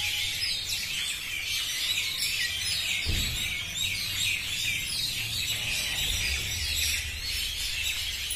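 A flock of birds chirping continuously in the trees: many short, overlapping chirps. A low rumble comes in about three seconds in.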